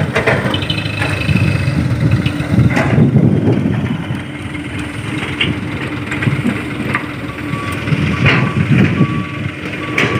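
Heavy diesel machinery of an excavator loading dump trucks, running under load with knocks and clatter as rocky earth is moved. From a little past halfway a reversing alarm beeps at an even pace.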